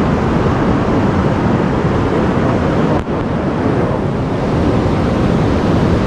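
Steady rush of surf breaking on the shore, with wind buffeting the microphone; the sound dips briefly about three seconds in.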